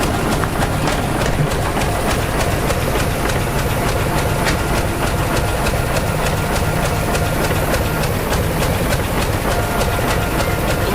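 Crawler bulldozer working, its diesel engine running steadily under a fast, even clanking from the steel tracks.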